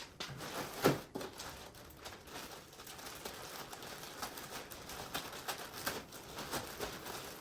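A delivery parcel's packaging being torn and opened by hand: a run of quick crackling, crinkling and tearing sounds, the loudest about a second in.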